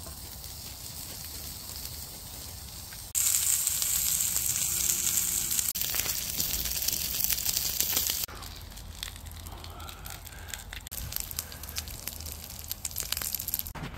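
Burger patties sizzling in a black frying pan over a wood fire, a steady hiss of frying fat peppered with crackles and pops. The sizzle gets abruptly louder about three seconds in and drops back about eight seconds in.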